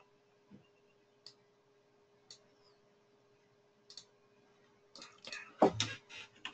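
Faint computer mouse clicks: a few single clicks spaced about a second apart, then a quicker run of clicks with one louder knock near the end.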